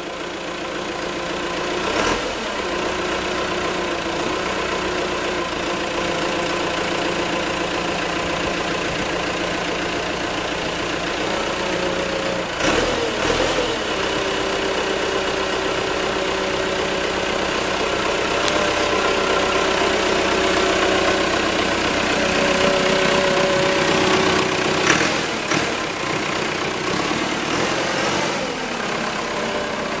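Diesel engine of a 1995 JCB backhoe loader idling steadily, with a few small shifts in engine pitch and some brief knocks, the sharpest about 25 seconds in.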